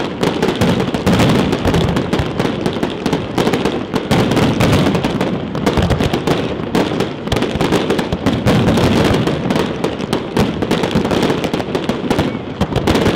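Aerial fireworks bursting and crackling in a dense, continuous barrage, with many sharp cracks and bangs each second.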